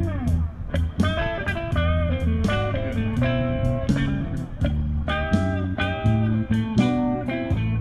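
Background music: a bluesy instrumental with a lead melody of held, bending notes over a bass line and a steady drum beat.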